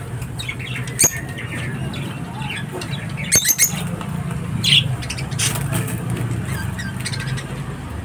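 Rosy-faced lovebirds giving short, shrill squawks and chirps in scattered bursts, with a flutter of wings about halfway through. A steady low hum runs underneath.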